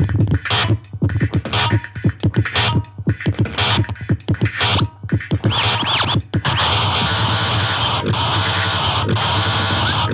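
Experimental electronic noise music: choppy, stuttering bursts with short pitch sweeps and abrupt gaps, giving way at about six and a half seconds to a dense, unbroken wall of noise.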